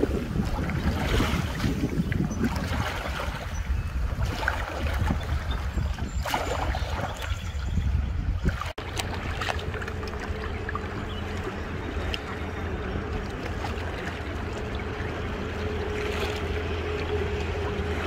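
Wind buffeting the microphone over water noise on a river raft. About nine seconds in the sound cuts out for an instant, and after it a faint steady hum runs under the wind.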